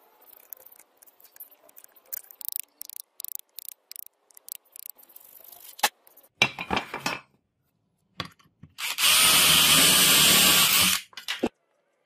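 A series of short scraping strokes of a blade carving out wood. Near the end a power tool runs steadily for about two seconds, the loudest sound here.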